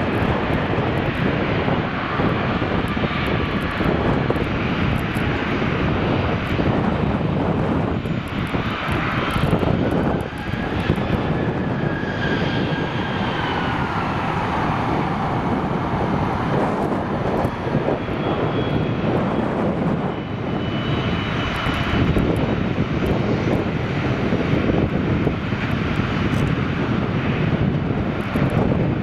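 Twin-engine jet aircraft close by, their engines running loud and steady. A turbine whine glides up and then falls in pitch about a third of the way in.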